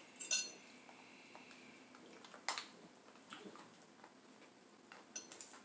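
Quiet handling of food at a table, with a few light clicks and taps as crab legs are lifted from the platter, and soft rustling between.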